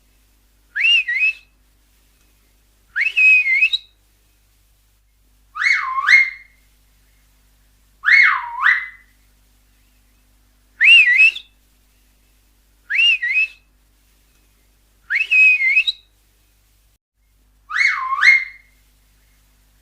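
Finger whistle blown in a series of eight short, loud whistles about every two seconds. Some rise and fall in pitch, others swoop down and back up.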